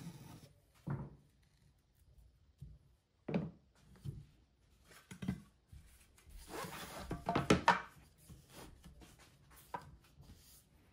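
Cherry boards and a hand plane handled on a wooden workbench: separate wooden knocks and scrapes. The loudest burst of knocking and rubbing comes about seven to eight seconds in, as the boards are slid and laid together edge to edge.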